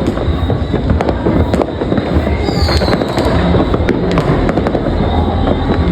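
New Year's fireworks and firecrackers going off in a dense, continuous barrage of sharp cracks and bangs over a low rumble.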